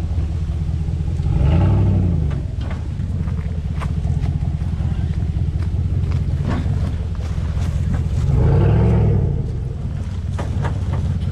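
Chevrolet Silverado ZR2 pickup's engine running as the truck crawls over rocks, revving up twice, about a second and a half in and again near eight seconds. Scattered sharp clicks and crunches of tyres on stone.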